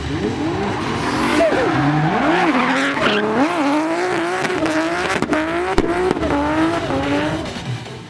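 Nissan Skyline R32's RB26 twin-turbo straight-six drifting: the engine revs up and down again and again over tyre squeal, with a few sharp cracks about five to six seconds in, fading near the end.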